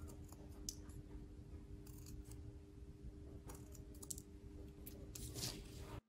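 Scissors snipping through paper: a series of faint, short snips at irregular intervals as small shapes are cut out, over a faint steady hum.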